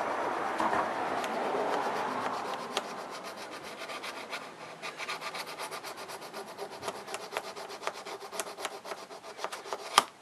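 Coarse EZE-LAP diamond hone rubbed back and forth along the bevelled cutting edge of garden snips, sharpening the blade: a steady rasp at first, then quick short strokes, several a second. A sharp click near the end.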